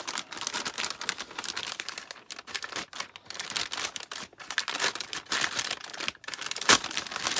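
Clear plastic bag crinkling as it is handled and pulled open around a hard drive: a dense run of small crackles, with one sharper, louder crackle near the end.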